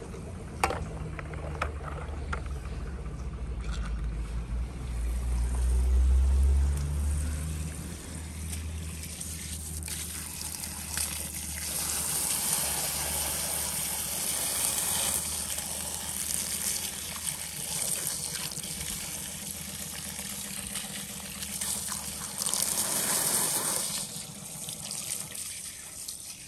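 Water trickling and splashing, with a low hum that is loudest over the first several seconds.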